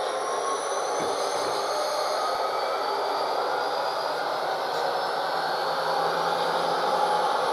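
HO-scale model diesel locomotives running, their Tsunami 2 DCC sound decoders playing diesel engine sound through tiny tablet and sugar-cube speakers. It is a steady engine drone under a hiss, with a thin high whine above, growing slightly louder as the units approach.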